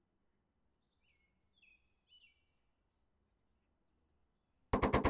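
Near silence with a few faint bird chirps. Near the end, a rapid run of light hammer taps on a car's sheet-metal hood starts suddenly, with the panel ringing under the blows.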